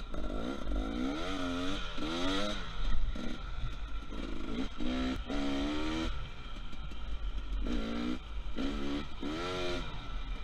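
Dirt bike engine revving up and dropping back several times as the bike is ridden along a trail, with a steady low rumble underneath.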